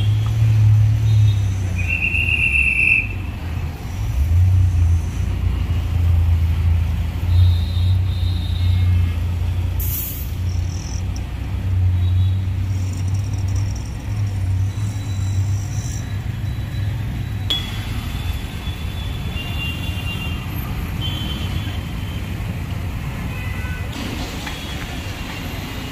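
City street traffic noise: a steady low rumble of passing vehicles, with a short high tone about two seconds in.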